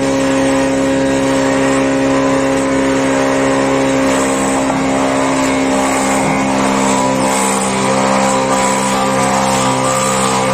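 Woodworking combination planer with a horizontal boring attachment running at a steady pitch, its bit drilling into a clamped wooden plank.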